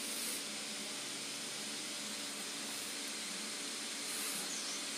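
Faint, steady hiss of chopped onion, garlic and ginger frying gently in mustard oil over a low flame.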